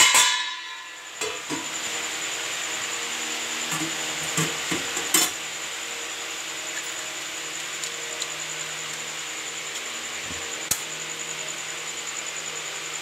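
Stainless-steel puja utensils (a thali and bowls) clinking and knocking as they are handled: a cluster of knocks a few seconds in and a single sharp clink later. Under them runs the steady hum of an electric fan.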